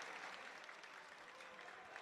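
Audience applause, faint and slowly dying down.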